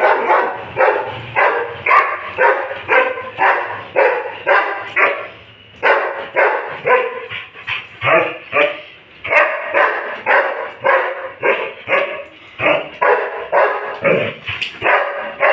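Doberman barking over and over in quick, even barks, about three a second, with two short breaks.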